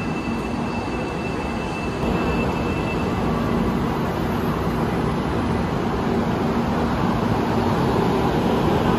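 White high-speed electric train pulling into the station along the platform: a steady rolling rumble that grows a little louder about two seconds in as the cars come alongside.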